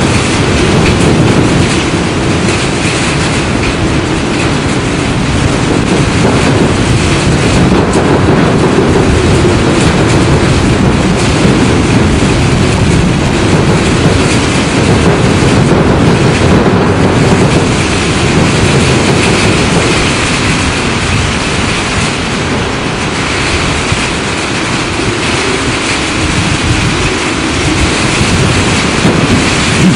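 Storm wind blowing hard, a loud, continuous rush, heaviest and deepest low down, that swells and eases in slow gusts and buffets the microphone.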